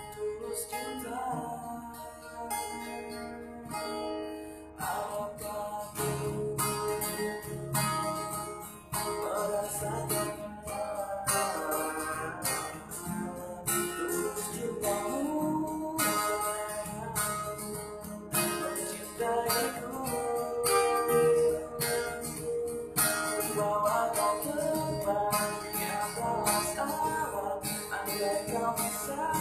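A man singing to his own strummed acoustic guitar, which has a capo on its neck.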